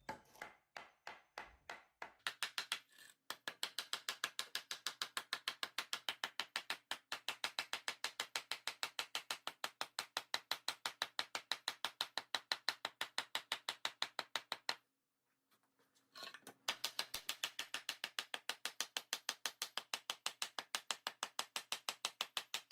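Rapid, even mechanical clicking, about five clicks a second, over a faint low hum. The clicking stops for a second or two past the middle, then starts again.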